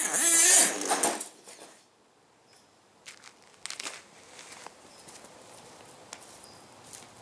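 HPI Savage X 4.6 nitro monster truck's 4.6 cc engine revving as the truck drives hard past close by, its pitch rising and falling, then dying away within about two seconds. After that only a faint hiss with a few light clicks.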